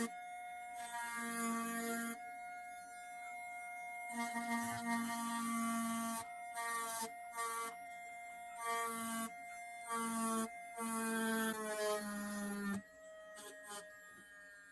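Handheld rotary tool with a fine engraving bit cutting decorative lines into a steel hammer head: a steady motor whine, with scratchy hissing bursts each time the bit bites the metal. Near the end the pitch sags a little and the sound gets quieter.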